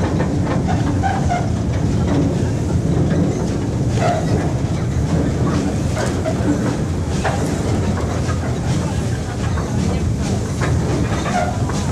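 Wood-fired steam locomotive train running, heard from right behind the tender: a steady rumble with the wheels clacking irregularly over the rails.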